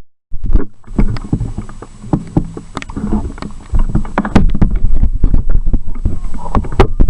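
Low rumble of wind on the microphone with many irregular knocks and rattles, as from a handheld camera on the move. The sound drops out completely for a moment right at the start.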